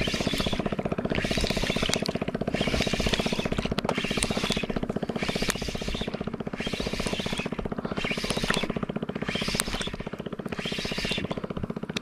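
A small boat engine running steadily with an even, fast pulse. Over it a hiss swells and fades roughly once every second or so.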